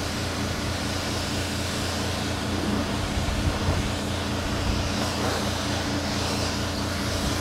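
Steady hum and hiss of a spray-painting setup: the air supply runs without a break while a handheld spray gun lays a light first coat of paint.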